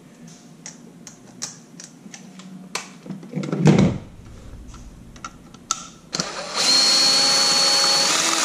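Power drill fitted with a long screwdriver bit, running steadily for about a second and a half near the end to back out one of the lock's deep screws. Before that come light handling clicks and one loud thump about three and a half seconds in.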